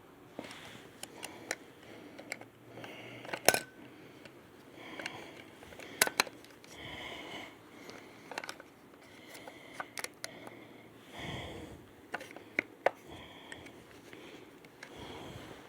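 Handling noise of a hard plastic radio and its packaging: scattered sharp clicks and light knocks, the loudest about three and a half and six seconds in, with rustling and scraping in between.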